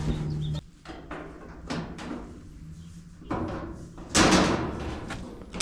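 Metal panels of a dryer cabinet being handled and shut: a few sharp knocks, then a loud slam about four seconds in. A steady low hum cuts off just after the start.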